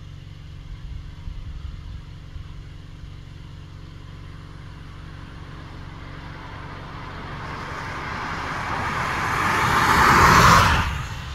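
A car driving up the road and passing close by. Its tyre and engine noise builds over several seconds to a peak about ten seconds in, then falls away sharply as it goes past.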